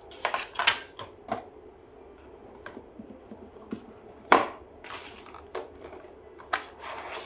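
A cardboard phone box and its packed contents being handled: scattered rustles and light clicks, with one sharp knock about four seconds in.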